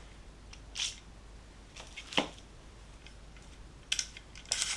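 Handling of an airsoft gas blowback rifle: a soft scrape, one sharp click about two seconds in, then a quick cluster of clicks and rattles near the end.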